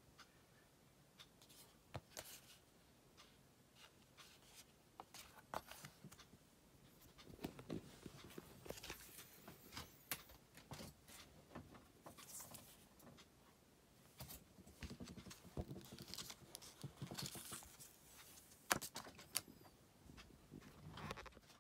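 Quiet handling noises from unboxing a smartphone: soft rustling of paper and cardboard packaging pieces with scattered light clicks and taps. The sharpest click comes near the end.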